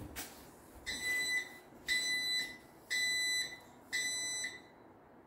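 Garage door opener sounding its warning beeper: four steady high-pitched beeps, each about half a second long, spaced about a second apart.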